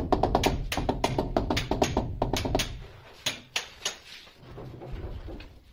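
Rubber mallet tapping a ceramic wall tile to bed it into the adhesive: a quick run of sharp knocks for about two and a half seconds, a few fainter taps just after, then it stops.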